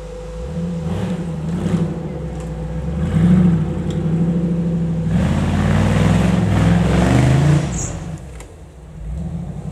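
Off-road competition vehicle's engine revving up and down as it works, with a louder, harder stretch of throttle past the middle that then eases off.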